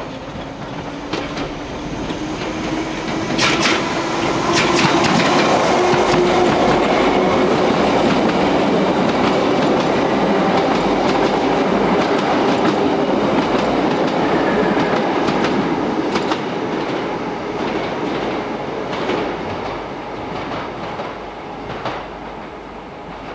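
London Underground electric train passing close by. Its running noise swells over the first few seconds and fades toward the end, with a faint motor whine that rises slightly and then holds. The wheels give a few sharp clicks over the rail joints.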